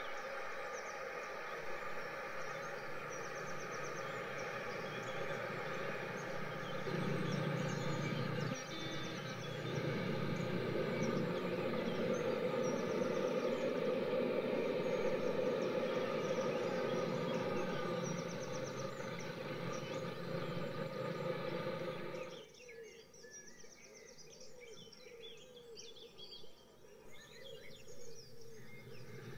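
N gauge model passenger train running along the track, a steady mechanical whirr and rumble that swells about seven seconds in and drops away abruptly about two-thirds of the way through. Faint bird chirps sound over it throughout.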